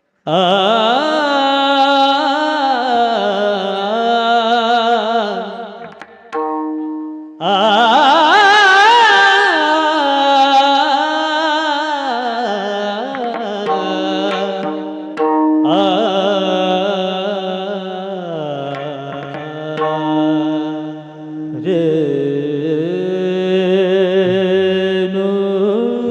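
Marathi devotional bhajan singing in a kirtan: a voice holds long, ornamented, wavering notes over steady held instrumental tones, pausing briefly twice.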